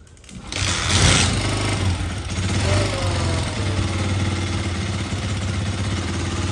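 Honda TMX 125's single-cylinder four-stroke engine starting about half a second in, revving briefly, then running steadily as the revs fall back. It is a cold start on a bike that has sat mostly unused.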